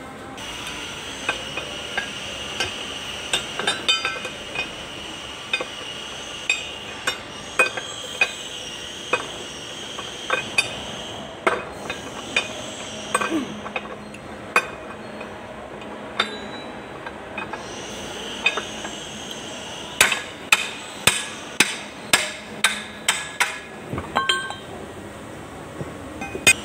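Repeated sharp metal-on-metal taps and clinks from tractor final-drive gear and shaft parts being handled and knocked together, irregular at first, then a quicker run of about two to three strikes a second near the end.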